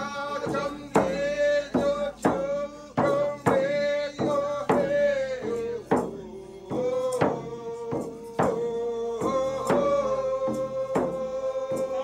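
Singing in long held notes over a drum struck about once or twice a second. The sung pitch steps down about six seconds in, then holds steady again.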